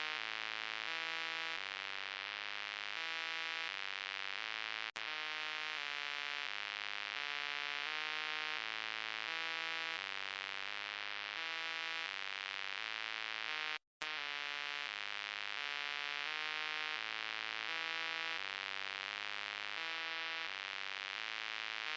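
Synthesized robot-voice sound effect: a buzzy electronic tone stepping to a new pitch about twice a second, with a short cut-out near the middle.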